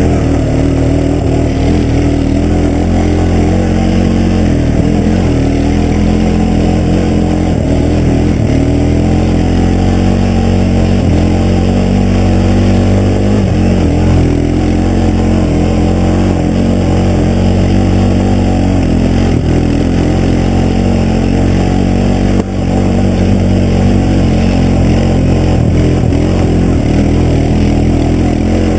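ATV engine running loud and steady while riding, its pitch rising and falling with the throttle, with a brief drop about three-quarters of the way through.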